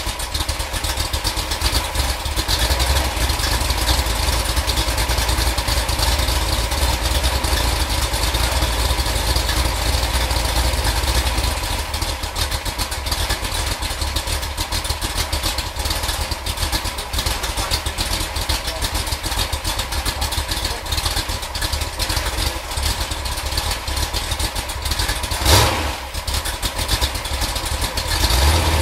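Freshly built Ford 428 FE V8 engine idling steadily, a rapid even run of firing pulses with a strong low rumble. It settles a little quieter about twelve seconds in, with a short louder burst a few seconds before the end.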